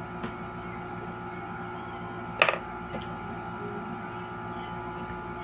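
Steady electrical hum with several fixed tones over a low background hiss, broken once by a brief sharp click about two and a half seconds in.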